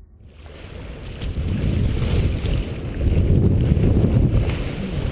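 Wind buffeting the camera's microphone, with sea waves washing against the rocks. It cuts in suddenly a moment in and grows louder over the first few seconds.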